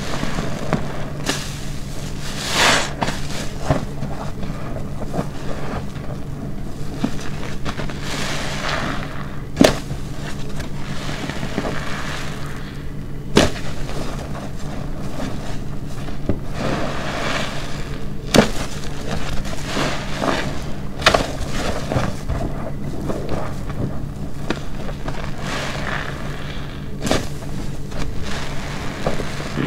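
A black car wash sponge soaked with shampoo being squeezed: a continuous wet, crackling squelch with several sharp pops along the way.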